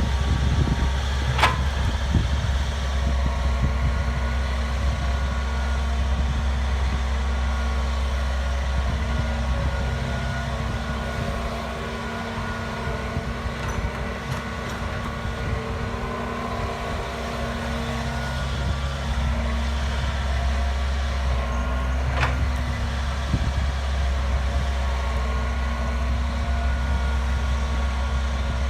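Hitachi EX120 hydraulic excavator's diesel engine running steadily under working load, with a deep hum, easing slightly for a few seconds around the middle. Two sharp knocks stand out, one near the start and one about three quarters of the way through.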